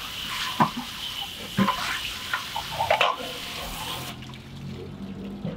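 A garden hose spray nozzle sprays water hard onto a metal charcoal grate and into a kettle grill's bowl, rinsing them. There are a few short sharp knocks along the way, and the spray cuts off about four seconds in.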